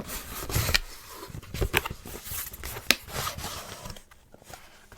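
Packaging of a book subscription box being opened and handled: rubbing and scraping with a few sharp cracks, the loudest nearly three seconds in, quieter near the end.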